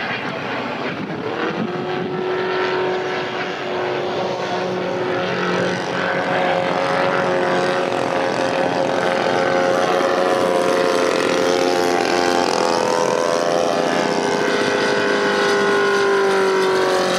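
Kolm four-stroke boxer engine driving the propeller of a radio-controlled Clipped Wing Cub model plane in flight. It runs steadily, its pitch rising and falling with throttle, and grows louder toward the end.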